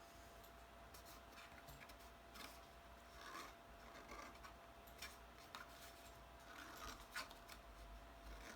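Near silence with faint, scattered clicks and soft rubbing of a glued cardstock box being handled and pressed down on a table, over a faint steady hum.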